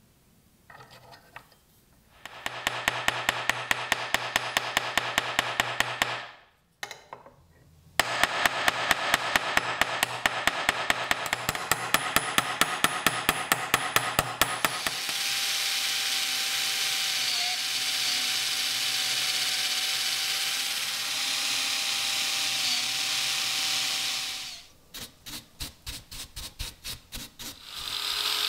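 Small hammer tapping rapidly on the pin through a bronze knife guard set on a small anvil, peening it over, about four to five light blows a second in two runs. About halfway the taps give way to a small power tool running steadily, its pitch dipping briefly twice. A few quieter taps follow near the end.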